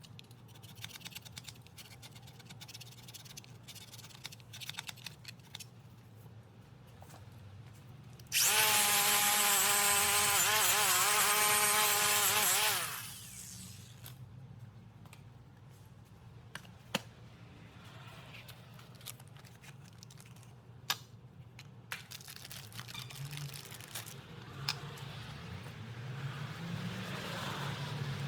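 A power tool runs in one loud burst of about four seconds, its whine wavering and then falling away as it stops, amid light clicks of tools being handled. A low hum builds near the end.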